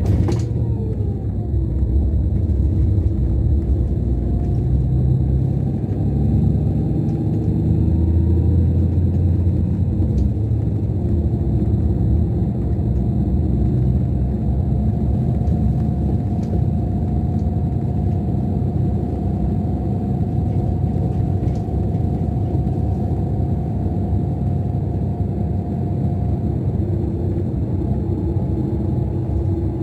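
Scania K410 coach's rear-mounted Scania DC13 inline-six diesel running steadily at cruise, heard from inside the lower deck: a low drone with a faint steady whine above it.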